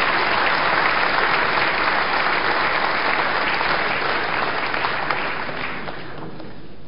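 Large assembly of deputies applauding, a dense steady clapping that thins and dies away about six seconds in.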